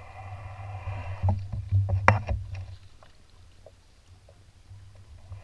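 Old Town Next canoe being paddled: a swish of water from a paddle stroke, then a few sharp knocks of the paddle against the hull, the loudest about two seconds in.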